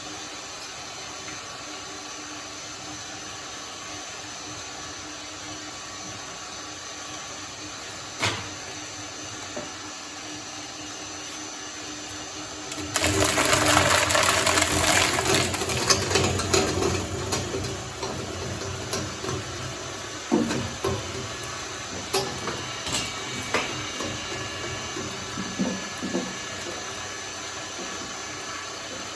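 Shredder running steadily, with a single knock about eight seconds in. About thirteen seconds in, slime goes through the blades with a loud crunching churn for around five seconds, then trails off into scattered pops and crackles.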